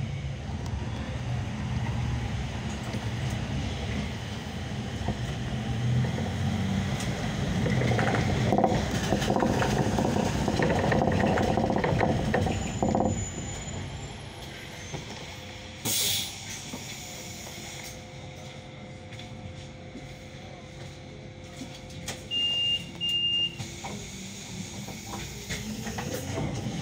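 Inside a Solaris Urbino 18 III articulated city bus on the move: engine and road noise rumble, louder in the middle stretch and easing after about fourteen seconds. About sixteen seconds in there is a short, sharp hiss of compressed air. Two short high beeps follow near the end.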